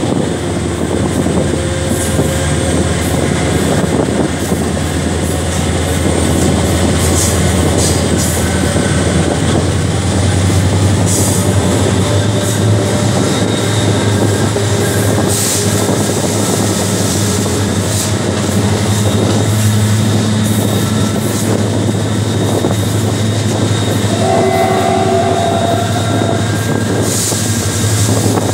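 Diesel locomotive GT 569 running under power, a loud steady low engine drone, with the wheels clicking and clattering over the rails.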